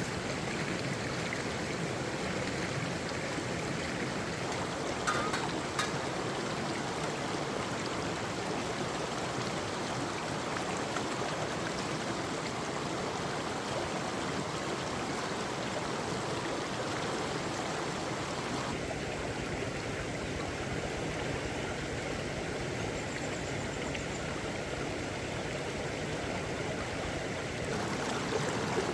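Mountain stream flowing steadily over rocks, with a couple of brief knocks about five seconds in.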